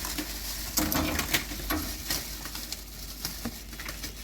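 Scattered knocks, clicks and rustles of frozen food packages being lifted out of a chest deep freezer. A brief low coo sounds about a second in.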